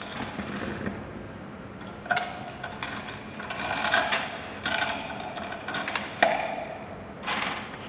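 Prepared acoustic guitar, its strings laced with metal chains, played by hand: a string of about six separate metallic twangs and rattles, each with a short ringing note, over a light jangle of chain.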